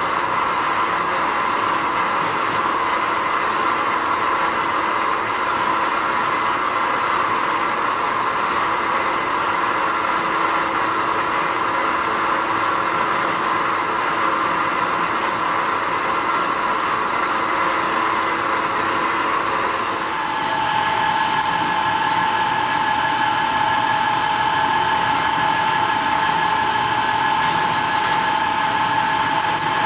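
Wind turbine's electric service chain hoist running with a steady whine as it hauls its chain and hook. About two-thirds of the way through it cuts to another run of the hoist, now a slightly lower, steadier tone with scattered ticks.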